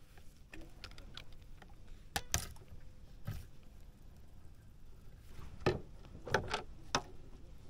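A few sharp clicks and knocks as a fishing rod and spinning reel are handled, over a low steady rumble.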